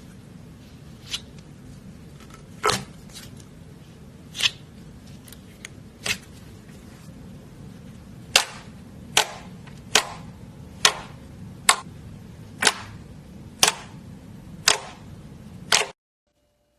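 Slime being played with, making sharp pops. They come irregularly at first, then about one a second, and stop suddenly near the end.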